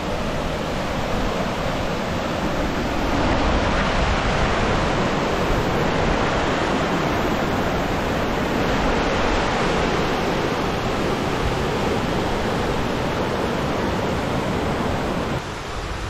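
Mountain stream rushing in shallow rapids over broad, flat bedrock slabs: a steady rush of water.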